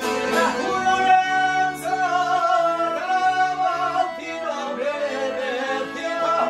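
Man singing a folk song in long, ornamented, wavering notes, accompanied by violin, accordion and plucked long-necked lutes.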